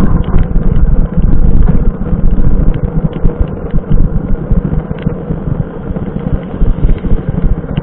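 Wind buffeting the microphone of a camera on a bicycle riding through rain on a wet road, a steady low rumble with scattered light clicks and rattles.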